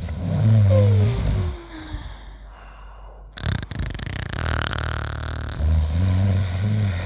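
Cartoon snoring: a low snore, then a whistle that falls in pitch on the breath out. A second, longer snore swells near the end.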